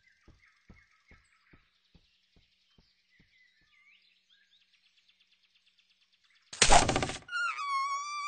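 Cartoon sound effects over faint birdsong: a slow series of soft taps that fade away, then about six and a half seconds in a loud, short whoosh-and-thump. A high, wavering violin-like note follows, sliding down in pitch and then holding.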